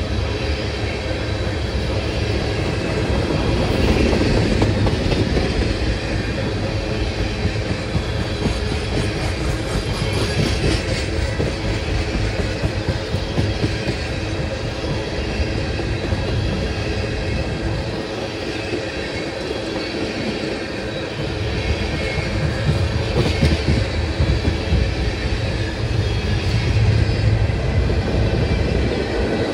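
Long freight train's cars rolling past, a steady rumble of steel wheels on rail with clicking over the rail joints.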